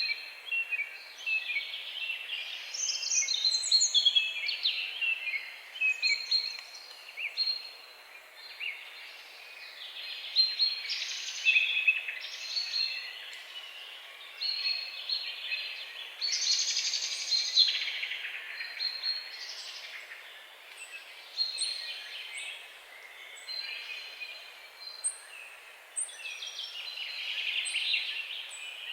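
Forest ambience: several songbirds singing and calling over one another, with chirps and warbling phrases coming and going over a faint steady hiss. In the second half a thin, very high short note repeats about once a second.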